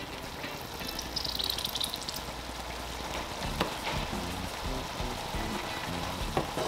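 Sauce sizzling in a skillet while a wooden spoon stirs it, with a few sharp taps of the spoon against the pan. Soft background music plays underneath.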